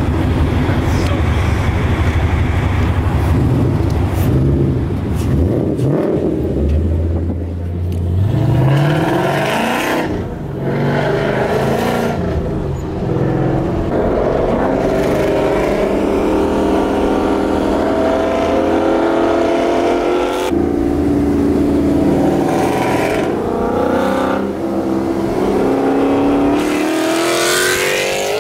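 Ford Mustang GT 5.0 Coyote V8 running hard under acceleration. The engine note climbs in several long rising pulls and drops back between them, with the steepest climb near the end.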